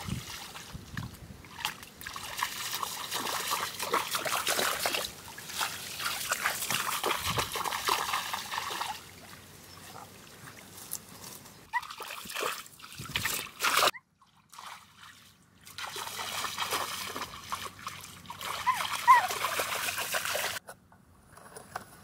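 Water trickling and splashing in spells, cutting off suddenly about two-thirds of the way through and again near the end.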